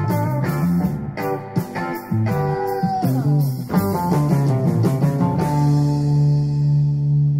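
Electric guitar and bass guitar playing a rock riff of quick plucked notes, with one note sliding down in pitch about three seconds in. From about two-thirds of the way through, a low note is held and rings on.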